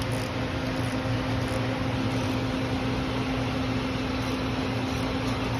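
Air conditioning unit running: a steady electric hum with a constant low drone under an even rush of air.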